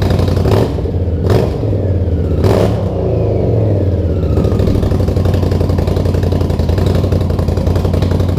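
Indian Scout V-twin through Trask slip-on mufflers, very loud: the throttle is blipped sharply about three times in the first three seconds, then the engine runs on steadily.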